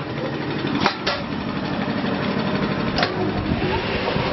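Steady hum of food-processing machinery running, with a few sharp metal clanks, about a second in and again about three seconds in, as the stainless steel wire-mesh basket of cut potato strips is handled and set into its drum.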